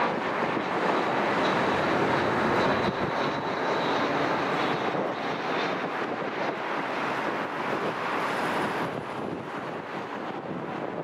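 Jet airliner landing close by: a broad engine roar with a faint high whine, loudest a couple of seconds in and slowly fading away.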